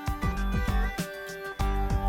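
Background music: a bright, upbeat tune with pitched notes over a steady beat.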